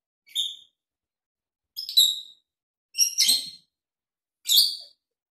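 Small pet parrot giving four short, high-pitched chirps, spaced a second or so apart.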